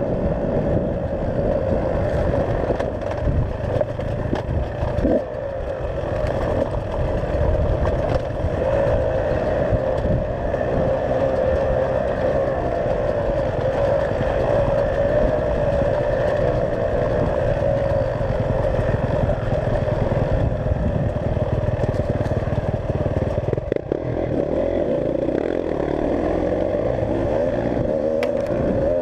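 Enduro dirt-bike engine running steadily under way, its pitch wavering a little, with brief clattering knocks.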